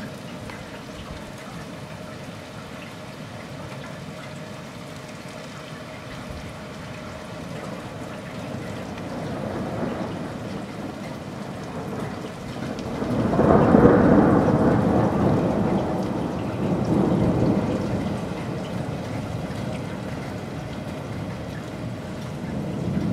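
Distant thunder rolling: a rumble that builds slowly, peaks loudly a little past halfway, swells once more and then dies away, over a steady hiss of rain.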